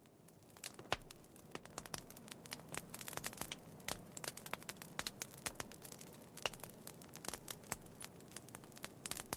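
Wood fire crackling faintly, with many sharp, irregular pops and snaps, fading in during the first second.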